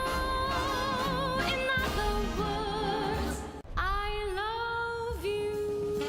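Background music: a slow ballad with long held melody notes that waver with vibrato, over a low bass line. The music drops out for a split second about halfway through.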